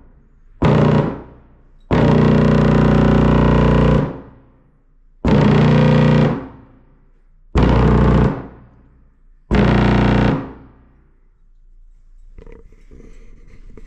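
18-inch Genius car-audio subwoofer wired straight to 127-volt AC household mains, giving a loud, distorted mains buzz in five bursts as the lead is touched on and off, the longest lasting about two seconds. The cone makes such large strokes that the whole driver jumps on the table.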